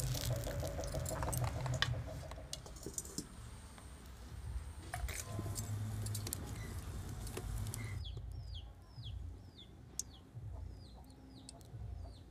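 Bird chirping: a run of about ten short, high chirps, each falling in pitch, in the second half. Before it, light knocks and clatter from the cooking.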